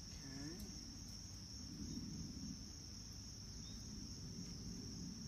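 A steady, high-pitched chorus of insects, faint, with a few light ticks over it.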